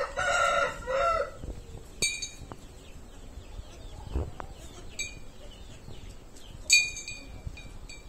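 Farm animal calls: a loud two-part pitched call in the first second or so, then three short high calls about two, five and nearly seven seconds in, the last the loudest.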